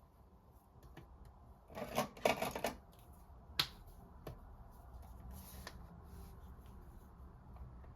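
Rustling and rapid clicking from handling paper and stationery at a desk about two seconds in, then one sharp click and a few softer taps, over a faint steady low rumble.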